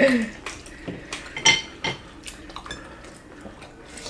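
Chopsticks and spoons clinking against ceramic bowls and the hotpot pan while a meal is eaten: a few sharp, separate clinks, the loudest about a second and a half in, over a soft background of eating. A short voiced murmur right at the start.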